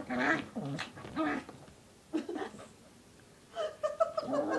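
Two dogs play-fighting, vocalising in short bursts: several short calls in the first second and a half, a quieter spell, then a run of short high-pitched whines near the end.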